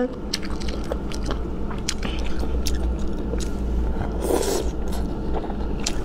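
Close-miked chewing of boneless chicken feet: wet mouth sounds with many scattered sharp clicks, and a short louder rush about four seconds in.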